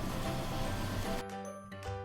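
Soft background music with steady held tones; no speech.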